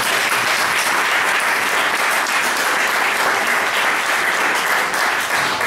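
An audience applauding, many people clapping at a steady level.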